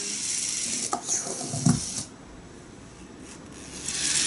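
A Tamiya Mini 4WD car's small electric motor and gears running with a high whir. A couple of knocks come about a second in, and the whir stops about two seconds in. It starts again near the end.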